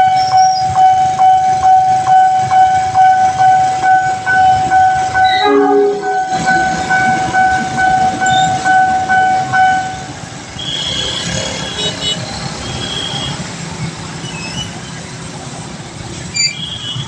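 Railway level-crossing warning alarm sounding a steady pulsing tone about twice a second, over the running noise of a train. The alarm cuts off about ten seconds in while the train noise goes on.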